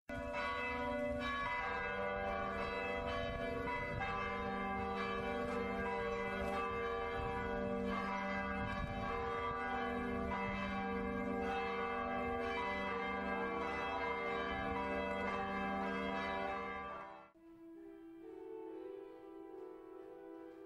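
Church bells ringing steadily, a dense clang of several bells, cutting off abruptly about three-quarters of the way through. Quieter sustained music follows.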